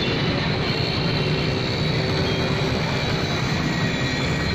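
Steady running noise of a two-wheeler's engine, heard from the rider's seat as it moves along a flooded road.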